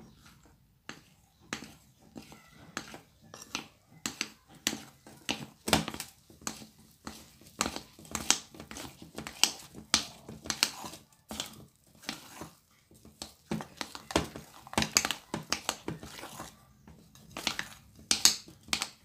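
Metal spoon stirring and scraping through a stiff, crumbly yeast dough as flour is worked in, with irregular clicks and scrapes of the spoon against the bowl, one or two a second.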